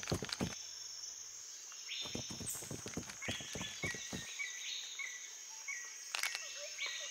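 Faint jungle ambience of insects chirping in short repeated high calls, with scattered soft clicks.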